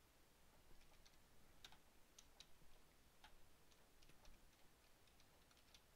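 Faint computer keyboard keystrokes: a scatter of short, quiet clicks as a command is typed.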